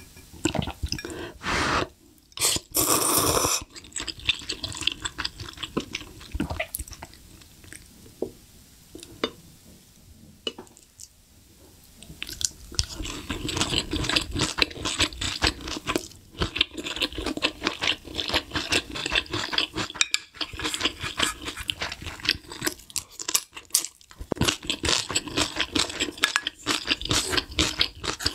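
Close-miked eating: a loud slurp of noodles about three seconds in, then chewing, which grows busy with rapid wet clicking and crunching in the second half.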